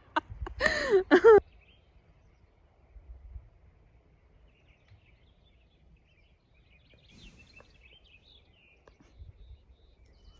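A short vocal sound with a wavering pitch about a second in, then quiet with faint bird chirps.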